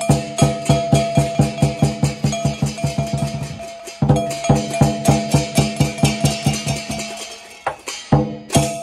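Lion and dragon dance percussion: a drum beaten in a steady fast beat, about four to five strokes a second, with brass cymbals clashing and ringing along. The beat eases off and comes back strongly about four seconds in and again near the end.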